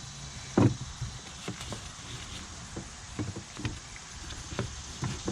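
Handling noises from an old serpentine belt being pulled up and out of the engine bay: one thump about half a second in, then scattered light knocks and rubbing.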